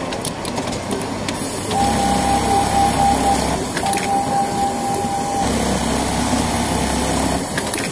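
SP 2210DH automatic pattern sewing machine stitching a curved decorative design on a denim back pocket, running steadily with a high whine that sounds twice, each time for about a second and a half, in the middle.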